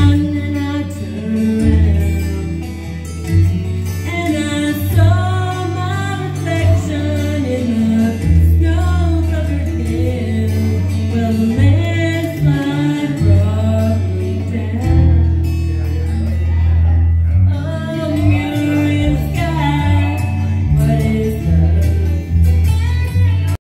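A woman singing into a microphone over amplified backing music with a strong bass line, played through PA speakers.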